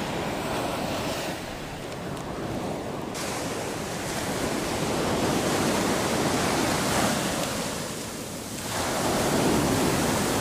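Ocean surf breaking and washing up the sand, a steady rush that swells louder twice, midway and near the end.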